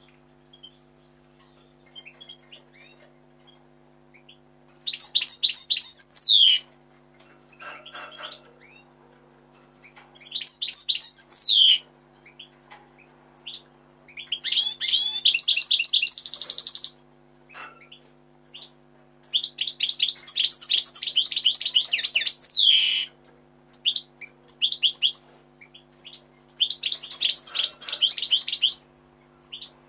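European goldfinch singing: five bursts of rapid, high twittering song a few seconds apart, several ending in a falling slurred note.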